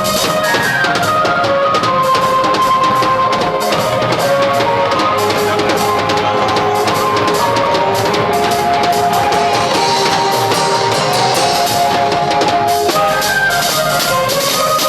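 Live Benin (Edo) band music: a drum kit keeps a dense, steady beat under a lead instrument playing a melody of held notes that step up and down.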